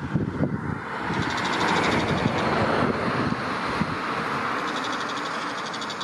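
A passing vehicle: a steady rushing noise swells about a second in and then slowly fades. A fast, high trill comes and goes faintly above it.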